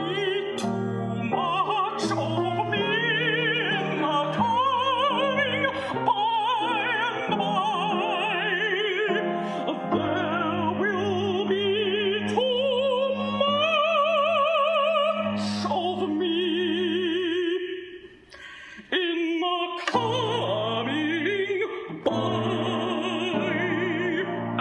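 Contralto singing an operetta aria with a wide vibrato over instrumental accompaniment. The music drops away briefly about eighteen seconds in, then the voice and accompaniment resume.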